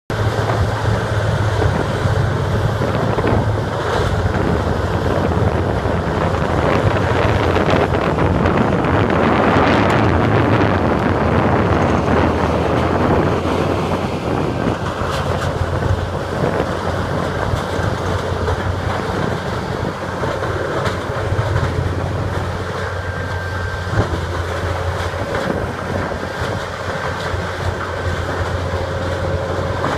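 Terex TBG640 horizontal grinder running under load, its engine a steady low drone beneath the dense crunching and cracking of stumps and logs being ground. The grinding is heaviest about eight to twelve seconds in, with a sharp knock now and then.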